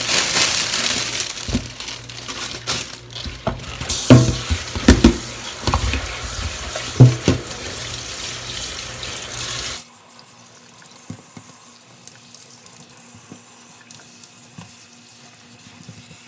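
Tap water running into a stainless-steel kitchen sink as a bunch of komatsuna is rinsed, with a few loud knocks of the greens and colander being handled in the sink. About ten seconds in the sound drops off abruptly to a much quieter level.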